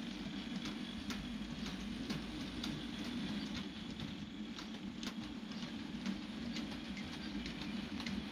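OO gauge model freight train running along the track: a steady electric motor hum with wheels clicking over the rail joints about twice a second.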